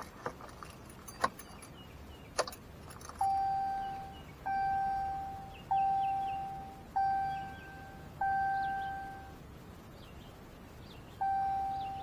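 Dodge Ram 1500 ignition key clicking as it turns to run, then the instrument cluster's warning chime sounding six times, each tone fading away. The chimes go with the cluster's 'License Plate Light Out' bulb-out warning, set off by the newly fitted LED bulbs.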